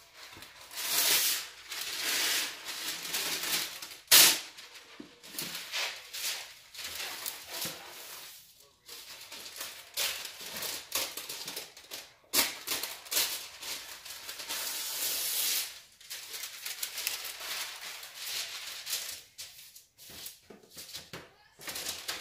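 Kitchen handling noises while making cookies: spells of scraping and rustling lasting a second or a few, with a sharp knock about four seconds in.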